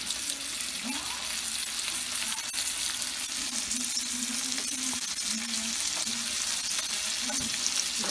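Salmon fillets frying in avocado oil with herbs and butter in a nonstick pan: a steady sizzle.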